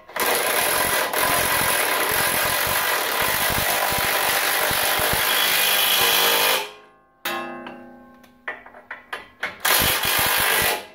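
Cordless impact wrench hammering a suspension bolt tight for about six and a half seconds, then stopping. After a short pause comes a quieter whir with a few clicks, then a second short burst of hammering near the end.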